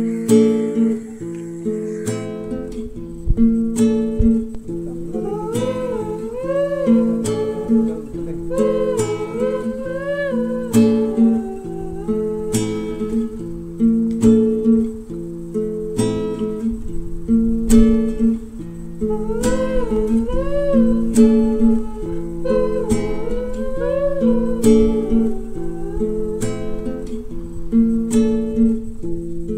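Background music: acoustic guitar playing a repeating chord pattern, with a wavering melody line laid over it in two phrases, one about a third of the way in and one about two thirds in.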